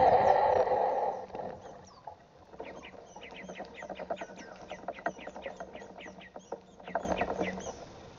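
Small songbirds chirping in a rapid run of short, high, downward-sweeping chirps, several a second. Before the chirping, a loud buzzing sound ends about a second in.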